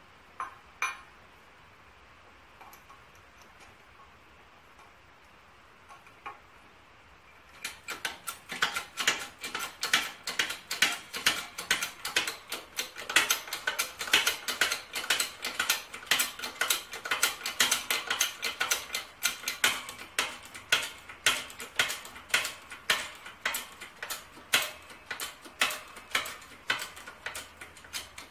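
Hydraulic floor press being pumped by hand, each pump stroke giving a sharp click, about three a second, as it pushes a camshaft out of its cam gear. The clicking starts about seven seconds in, after a couple of single knocks.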